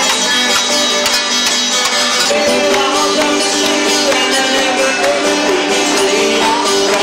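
Folk-style country music played on guitar and fiddle, running steadily at an even volume.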